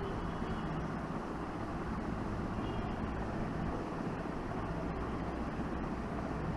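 Steady low mechanical hum over a constant wash of background noise, like a running engine or motor.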